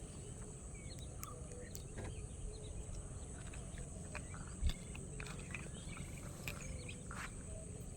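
Waterside ambience: insects buzzing steadily at a high pitch, with scattered short bird chirps over a low rumble. One soft low thump comes about halfway through.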